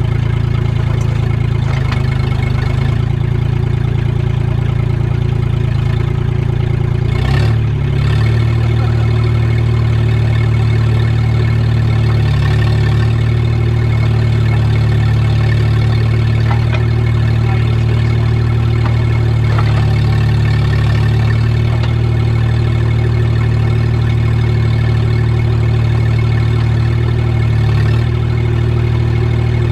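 An engine idling steadily and loudly. Its note shifts slightly about seven seconds in.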